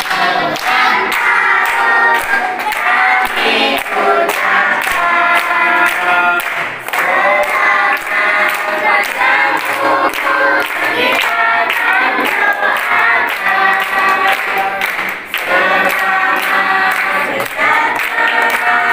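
A group of children and adults singing a birthday song together, clapping along in a steady beat.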